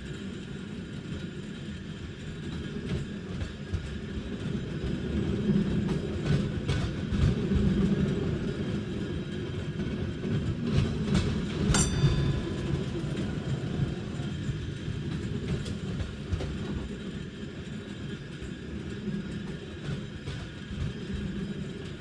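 Tram running on rails: a steady low rumble with scattered wheel clicks, swelling around the middle and easing off towards the end, with one sharp clack about halfway through.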